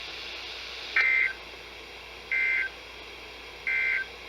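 NOAA Weather Radio SAME data tones: three short bursts of rapidly switching two-tone data, about 1.3 s apart, over radio hiss. This is the End of Message code that closes an Emergency Alert System weather warning.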